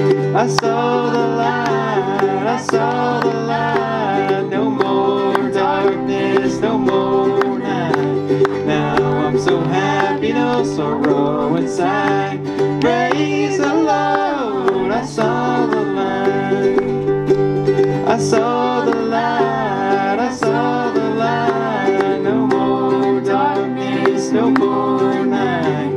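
Acoustic bluegrass hymn between sung verses: strummed acoustic guitar and a small plucked string instrument, with a wavering melody line carried over the chords.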